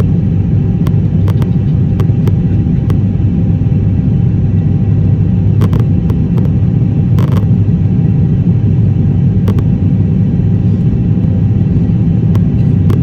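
Steady low rumble of a jet airliner's engines and rushing air heard inside the passenger cabin during takeoff, with a few light clicks.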